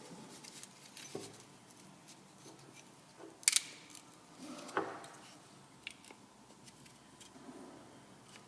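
Alfa Romeo 164 door lock mechanism clicking as its levers are worked by hand. There is a sharp click about three and a half seconds in, another about a second later, and a few faint ticks; the lock stays shut.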